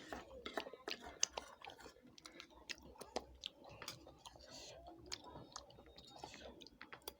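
A person chewing food, with soft, irregular mouth clicks.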